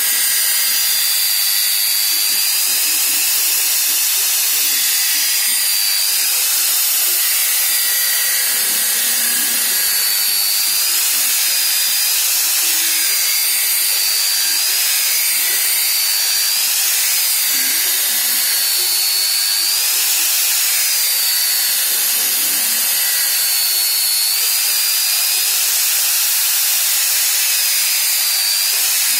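Homemade belt grinder running, its abrasive belt grinding the steel of an old axe head to restore the bevels. A steady harsh hiss with a high whine that dips in pitch again and again, then comes back up.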